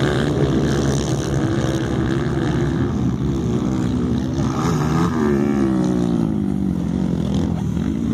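Motocross dirt bike engines revving, the pitch climbing and dropping as the throttle is worked, with a marked rise and fall about five seconds in.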